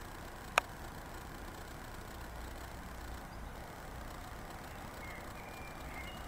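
Steady low background hum and hiss, broken by a single sharp click about half a second in.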